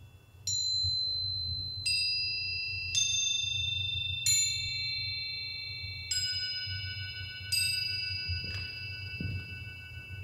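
Six single high notes struck on a small metal mallet-percussion instrument, about one every second or so, each ringing on and overlapping the next.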